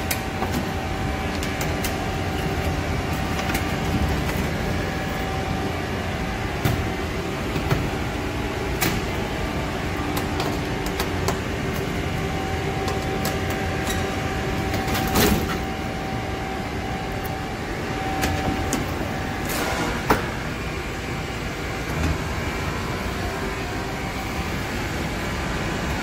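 Steady hum and air rush of a running Liebert computer-room air conditioning unit, with a few sharp clicks and knocks as the cabinet's panels and latches are handled.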